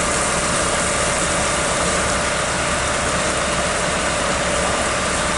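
Large fire burning in a tree's foliage: a loud, steady rushing noise without a break.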